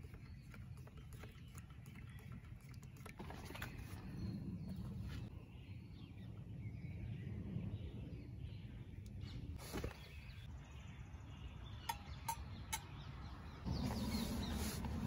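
Quiet outdoor ambience with a few faint sharp clicks and taps, three of them close together near the end; the background becomes louder shortly before the end.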